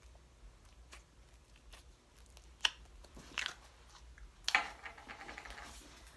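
Homemade slime being handled and pressed as fruit charms go in: a few sharp clicks, then a louder sticky squish about two-thirds of the way in that crackles off in quick little pops.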